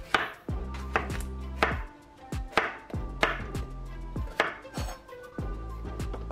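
Chef's knife slicing through zucchini into rounds, each cut ending in a knock of the blade on an end-grain wooden cutting board, roughly one cut every half second to a second, over background music.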